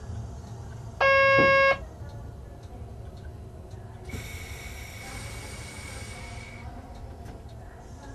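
Low rumble inside a train's driver's cab as the train rolls slowly through the station. About a second in comes one loud electronic beep lasting under a second, and from about four seconds in a steady hiss with a thin high tone runs for about two and a half seconds.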